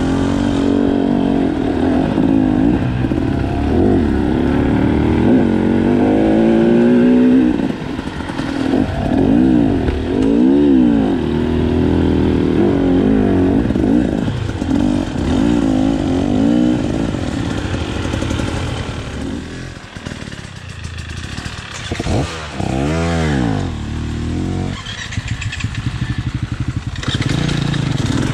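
Enduro motorcycle engine under way off-road, its revs rising and falling again and again with the throttle. About two-thirds through it drops lower and quieter, with a few short blips of revs, then picks up again near the end.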